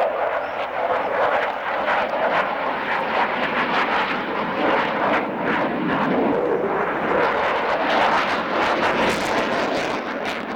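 Jet aircraft engine noise from a display flight: a loud, steady rushing roar that swells and eases slightly as the aircraft moves across the sky.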